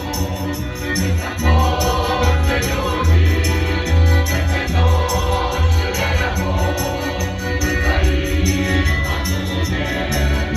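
Folk choir singing a song in several voices over instrumental accompaniment, with a steady bass line and an even beat.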